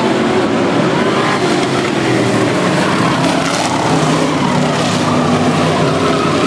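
Race car engines running hard around the track, a loud, steady din of engine noise.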